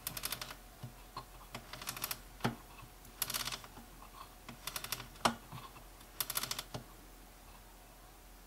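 Spring motor of a clockwork cylinder phonograph being wound by its side crank: the ratchet clicks in quick short runs about every second and a half, with single knocks in between.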